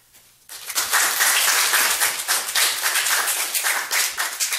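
A room of people applauding. The clapping starts suddenly about half a second in and is thinning out near the end.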